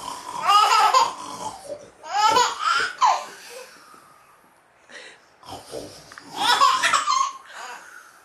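Baby about six months old laughing in three bursts of high-pitched giggles, with quieter breathy sounds between them.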